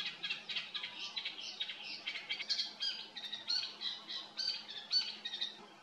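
Sedge warbler singing: a fast, unbroken run of short notes varied in pitch, stopping near the end.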